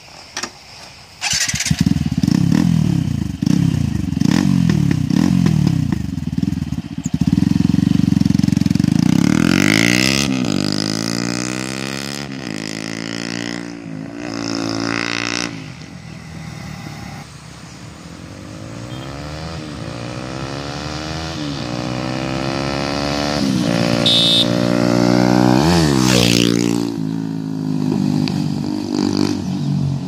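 TVS Apache RTR 200's single-cylinder engine breathing through a short stainless-steel full-system performance exhaust: it comes in loudly about a second in and runs with a throaty rumble for several seconds. It then accelerates away, rising in pitch and upshifting several times, and fades with distance. It grows louder again, passes close with a sharp drop in pitch at about 26 seconds, and recedes.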